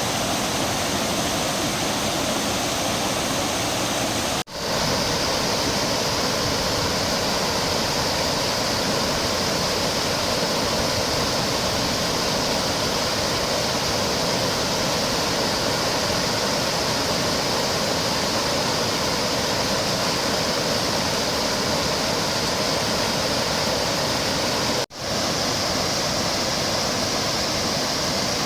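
A wide, low waterfall rushing steadily over rock ledges. The sound drops out for an instant and fades back in about four seconds in and again near the end, with its tone shifting slightly each time, where recordings are spliced together.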